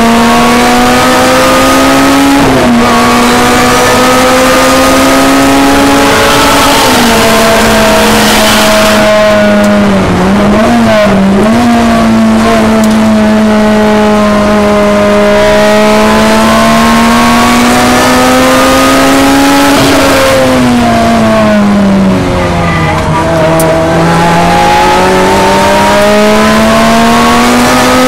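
Lotus race car's four-cylinder engine, heard from inside the cockpit at high revs: the pitch climbs slowly as the car pulls through the gears and drops sharply at each shift. About ten seconds in it dips and blips twice, and around twenty seconds in it falls to its lowest before climbing again, braking and downshifting for corners.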